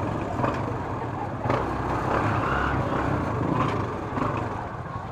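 Street traffic: motor vehicle engines, motorcycles among them, running steadily close by, with faint voices of a crowd in the background.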